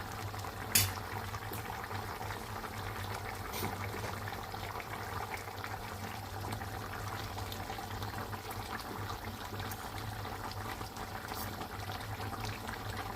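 Chicken stew in coconut milk bubbling steadily as it simmers in a pan on a gas flame, over a low steady hum. A single sharp tap comes about a second in.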